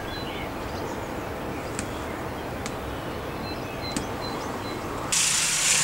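Faint steady outdoor background hiss with a few faint short chirps. About five seconds in, a kitchen tap suddenly starts running, its stream splashing onto lettuce in a steel bowl, much louder than what came before.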